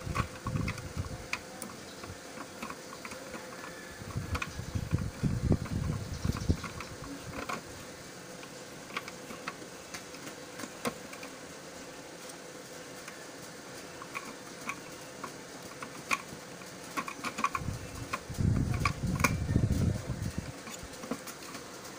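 Small scattered clicks and rubbing from hands and a tool working on the circuit board of an opened cassette radio. Bursts of low rumble come a few times, over a faint steady hum.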